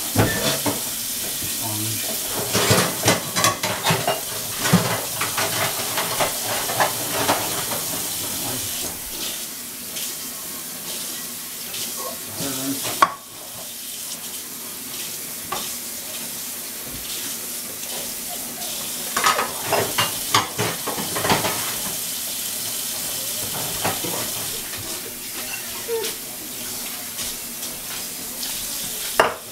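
Dishes being washed by hand in a kitchen sink: steady running tap water with dishes and utensils clattering in several bursts.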